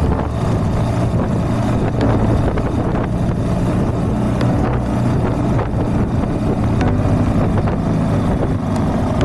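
Honda CB190R's single-cylinder engine running at a steady cruise, with wind noise on the microphone.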